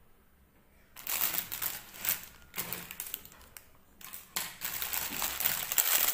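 A clear plastic bag crinkling and crackling as hands handle it and pull small plastic toy parts out of it. It comes in two spells, starting about a second in, with a short pause between them.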